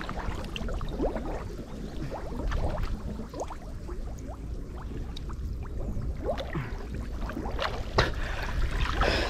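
Water splashing and sloshing in irregular small splashes and drips as people move in it, a little louder near the end.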